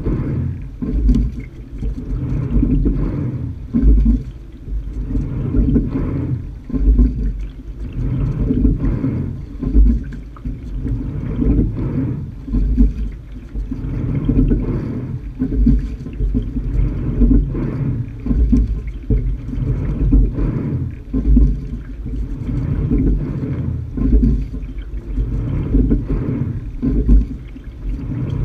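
Sculling shell being rowed on flat water: water rushing along the hull and the dull knocks of the oars and sliding seat swell with each stroke, about once every two seconds.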